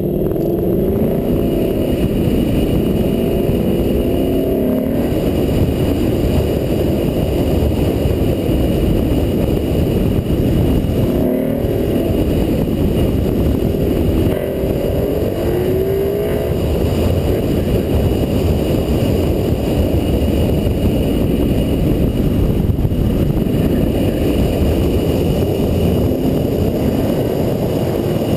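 2012 Ford Mustang GT's 5.0-litre V8, breathing through a Borla ATAK exhaust, driven hard. It rises and falls in pitch again and again as the car accelerates, lifts and accelerates through a tight cone course, with the clearest rev swings in the first few seconds and again around the middle.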